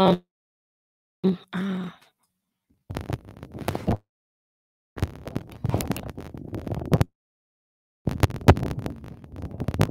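Crackling, distorted static from a faulty headset microphone being handled, in three bursts of a second or two, each cutting off into dead silence. A brief voiced hum comes before them. This is the distortion and static the host blames on the headset.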